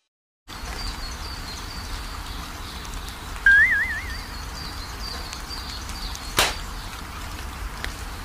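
Rural outdoor ambience with a low wind rumble and faint birds chirping. About three seconds in, a brief wavering, wobbling comic sound effect plays, and a sharp single click comes about three seconds later.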